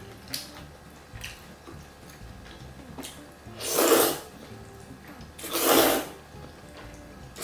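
A woman slurping jjajangmyeon (black-bean-sauce noodles) off her chopsticks. There are two loud slurps of about half a second each, at about four and six seconds in, with faint clicks before them.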